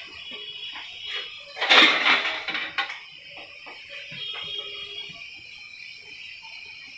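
Kitchenware being handled on a counter: soft knocks and taps of dishes being moved, with a brief louder scraping rush about two seconds in as a ceramic plate is brought into place.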